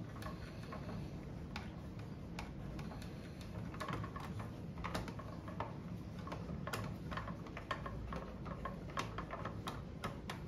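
Irregular small clicks and ticks of a hand screwdriver working screws into an overlock sewing machine's housing, a few each second.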